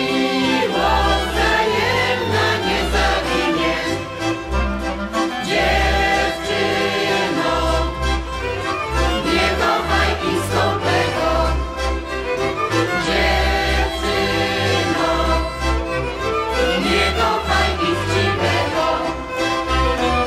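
A folk ensemble's men's and women's voices singing together, accompanied by accordion and fiddle over a steady, pulsing bass.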